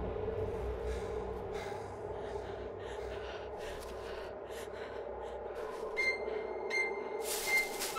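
A person's breathing and gasping, with short irregular noises, over a low steady drone. High steady electronic tones come in about six seconds in, and the music swells near the end.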